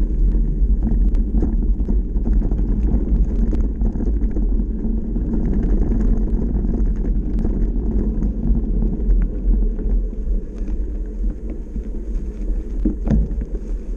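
Steady low rumble of a full-suspension electric mountain bike rolling over a dry gravel dirt trail, heard through a handlebar-mounted camera: tyre and trail noise with many small scattered ticks and rattles from the bike.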